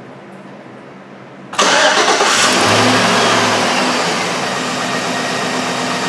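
A 2010 Chevrolet Silverado 1500's 5.3 L V8 starts about a second and a half in, catching at once, a little louder at first and then running steadily. It starts with a multimeter's leads bridging the slot of a fuse that corrosion had burnt open.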